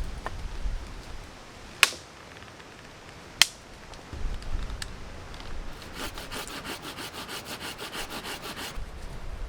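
A dead ash branch cracking sharply twice as it is bent to break it, then a saw cutting through it in quick, even back-and-forth strokes for about three seconds near the end. Wind rumbles on the microphone throughout.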